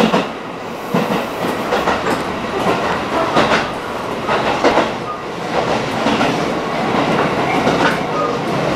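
Tobu Railway commuter train running, heard from inside the passenger car: a steady running noise with wheels clacking over rail joints in repeated, irregular knocks.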